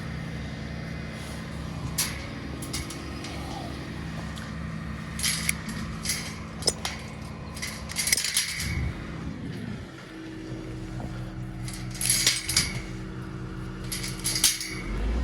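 Diesel engine of an excavator running steadily, its note sagging and recovering once about two-thirds through, with scattered clanks and scrapes of metal and ground.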